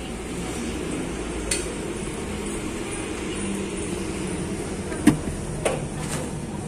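A few sharp metallic knocks and clinks, the loudest about five seconds in, over a steady low hum.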